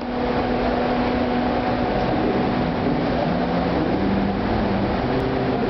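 Buenos Aires Subte metro train approaching the station through the tunnel: a steady rumble with a few humming tones that shift in pitch.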